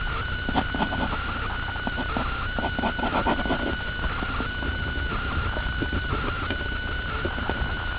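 Pen scratching on paper in short irregular strokes while inking over a pencil sketch, over a steady high-pitched whine and a low hum.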